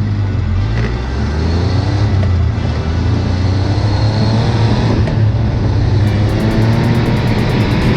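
Dune buggy engine running under load on a trail ride, its pitch slowly rising as the buggy speeds up.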